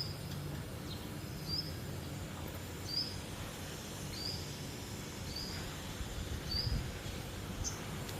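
A small animal's short high chirp, repeated steadily about once every second and a bit, over a low steady background rumble.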